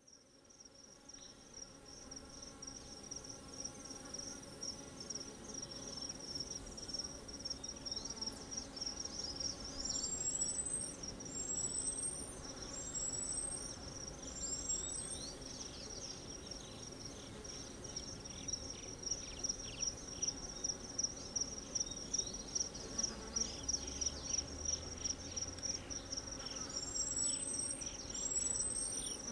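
A dense chorus of insects trilling steadily at a high pitch. It fades in at the start. Two runs of four short, high rising whistles cut across it, one about a third of the way in and another near the end.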